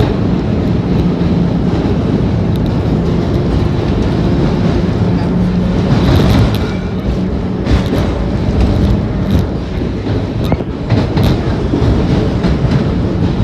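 Vintage New York City subway train running at speed through a tunnel, heard from inside the rear car. A steady loud rumble of wheels on rail carries a low hum and a few sharp clicks from the wheels passing over rail joints.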